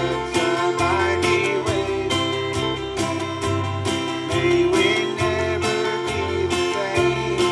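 Live gospel song: a man singing while strumming an acoustic-electric guitar, over a bass line and a steady drum beat.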